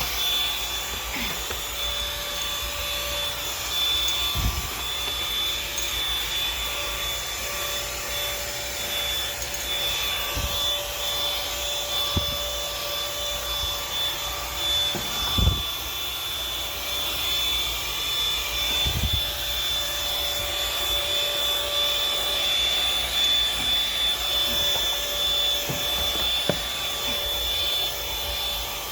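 Vacuum cleaner running steadily with a high whine, going over stair steps, with occasional short low thumps.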